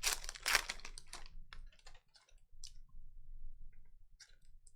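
Trading cards being handled and flipped by hand: a quick run of sliding and snapping in the first second or so, then scattered light clicks.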